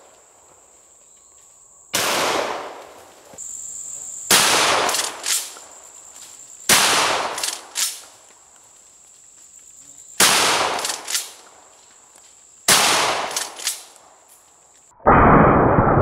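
Franchi SPAS-12 12-gauge shotgun firing low-recoil rifled slugs in pump-action mode: five shots about two to three seconds apart, each trailing into echo with quick sharp clacks after it. About a second before the end a long, muffled, steady rush takes over.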